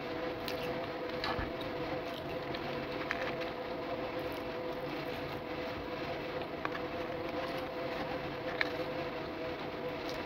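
Steady machine hum with a constant pitched tone, with a few faint clicks here and there.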